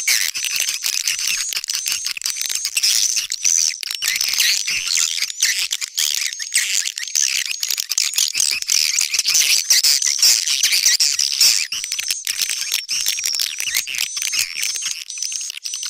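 Recorded edible-nest swiftlet calls: a dense chorus of many overlapping high-pitched chirps and twitters, with one short chirp repeating at even spacing over it. This is a swiftlet-farming lure call, played to draw swiftlets into a nesting house.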